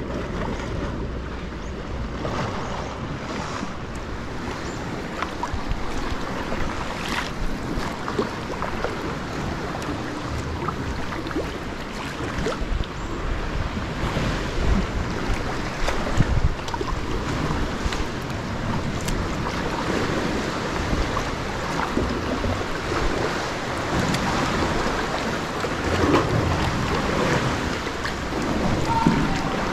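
Sea water lapping and splashing around a sea kayak and its paddle strokes, with wind noise on the microphone.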